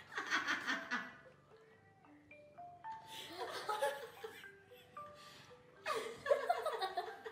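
Person laughing in three bursts about three seconds apart, over light background music of short single notes.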